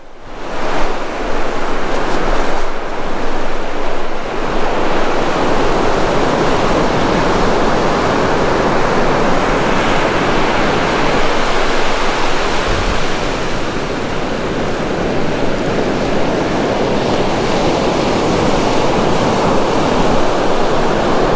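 Surf breaking and washing steadily on an open ocean beach, a continuous loud rush of waves.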